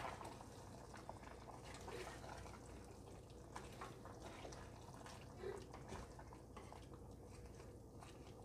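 Faint, irregular scrapes and clicks of a spatula stirring chicken curry in a clay pot, with the wet sound of the simmering sauce.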